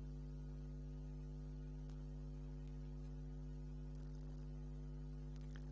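Steady low electrical hum, a fixed buzz of stacked tones that does not change.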